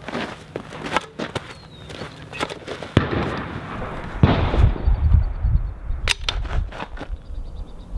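Sharp cracks and clicks of a .22 LR rimfire rifle being fired and handled from a wooden barricade. The loudest cracks come about three seconds in and again just past six seconds, over a low rumble.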